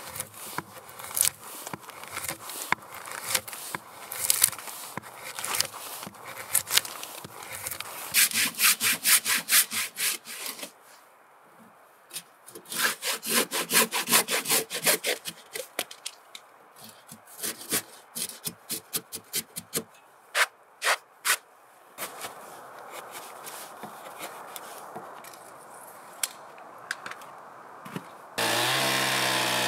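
Hand saw cutting through a squared timber log in runs of quick back-and-forth strokes, with chisel cuts into the wood. About a second and a half before the end a chainsaw starts running loudly.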